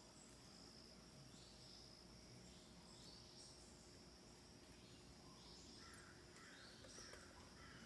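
Faint woodland ambience: a steady, high-pitched insect drone with short bird chirps repeating about once a second. A second, lower run of chirps joins about six seconds in.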